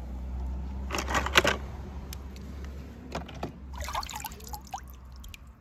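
Water splashing and trickling in a shallow plastic tub as small die-cast toy cars are dipped in and lifted out by hand, with sharp splashes about a second in and again around three to four seconds in, over a low steady hum.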